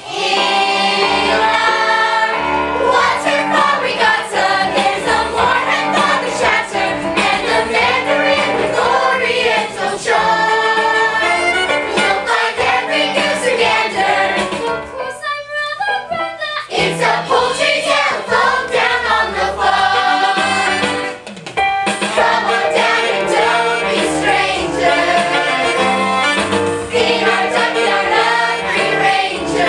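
A children's theatre cast singing together in chorus over instrumental accompaniment, a musical theatre number. The music drops back briefly about halfway through, then carries on.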